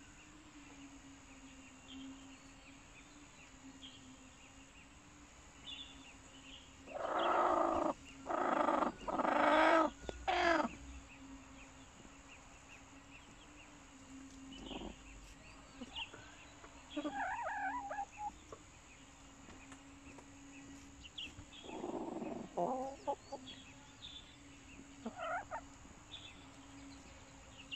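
Hens calling: a run of four loud, drawn-out squawks about seven seconds in, then scattered softer clucks and short calls, over a steady low hum.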